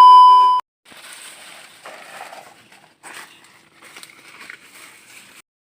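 A loud, steady electronic beep lasting about half a second at the start, of the kind edited in as a censor bleep or comedy sound effect, followed by faint, indistinct background noise.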